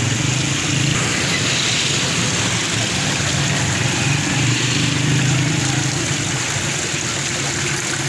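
Water splashing and trickling steadily from running concrete tiered fountains into their basins, over a steady low hum.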